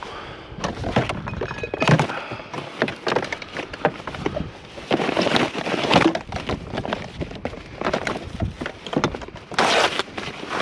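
Irregular clattering, knocks and rattles of discarded items, some of them metal, being handled and pulled out while rummaging through a trash can.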